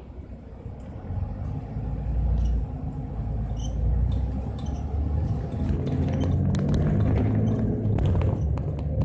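Mercedes-Benz Citaro city bus's diesel engine and drivetrain heard from inside the cabin as the bus pulls away from a stop, the low running sound growing louder about a second in as it accelerates. Scattered clicks come through in the second half.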